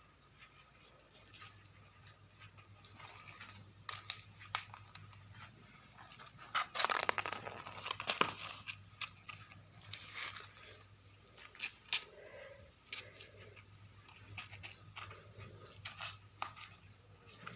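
A cat playing: scattered scratches, taps and rustles, with a busier, louder stretch around the middle, over a faint steady hum.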